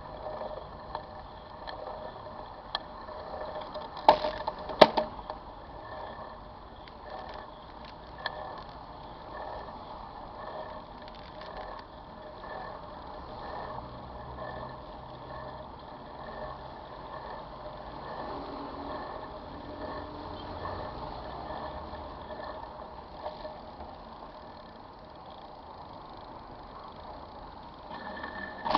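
Riding noise picked up by a camera mounted on a bicycle: a steady rumble and rattle of the bike rolling along, with a few sharp knocks about four to five seconds in.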